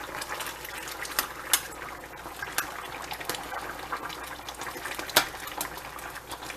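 Uncovered pot of chicken noodle soup boiling, a steady bubbling with many short pops, a few of them louder.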